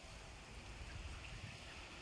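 Faint outdoor background: a steady low rumble, typical of wind on the microphone, under an even hiss, with a few faint high chirps.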